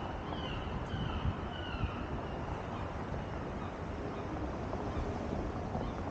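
City street ambience at an intersection: a steady rumble of traffic with cars driving through, and wind on the microphone. A run of short, falling chirps sounds in the first two seconds.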